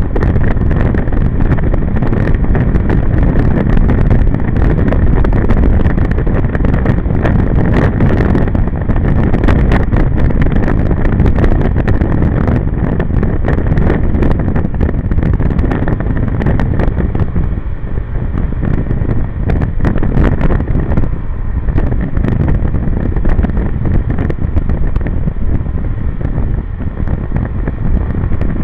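Wind buffeting the microphone of a riding motor scooter, loud and steady, with the scooter's engine and its tyres on the wet road underneath.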